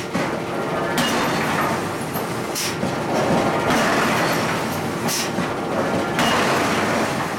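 Steady loud machinery noise of a forging shop, with short sharp bursts of noise about a second, two and a half and five seconds in.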